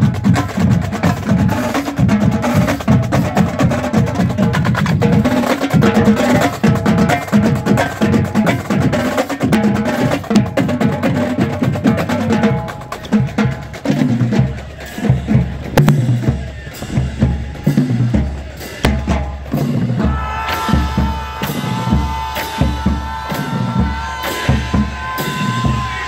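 A marching band drumline playing a cadence: rapid snare drum strokes over regular bass drum hits, with cymbal crashes. Steady held tones join about twenty seconds in.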